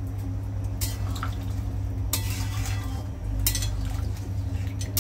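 Metal spoon stirring chicken curry in an aluminium kadai, with several short scrapes and clinks against the pan over a steady low hum.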